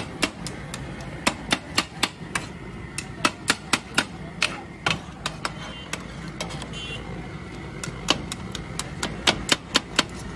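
Metal cleaver chopping and pounding chicken shawarma filling on a flat steel griddle tray: sharp metal-on-metal clacks, irregular at about two to three a second, with a sparser stretch in the middle. The cooked chicken and onion-tomato masala is being minced together.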